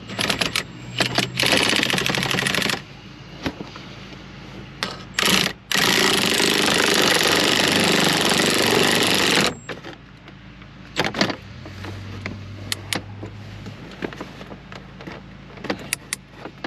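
Ratchet wrench clicking rapidly in two bursts, a short one at the start and a longer one of about four seconds in the middle, as a bolt is run in. Scattered knocks of tools against metal follow.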